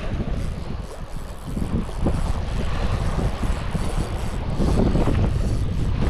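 Wind buffeting the microphone in an uneven rumble, with a rubbing noise over it.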